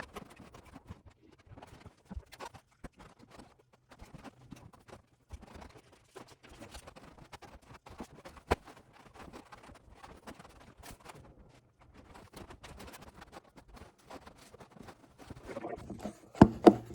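Faint, scattered clicks and light knocks, with a sharper click about eight and a half seconds in and a few louder knocks near the end.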